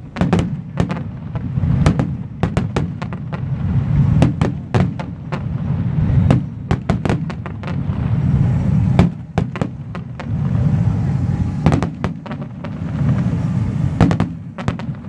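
Fireworks going off in quick, irregular succession: many sharp bangs and crackles over a steady low rumble.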